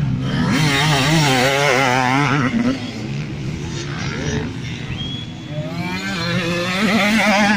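Motocross motorcycle engines revving hard, the pitch wavering up and down as the throttle is worked. Loudest in the first couple of seconds and again near the end, easing off in between.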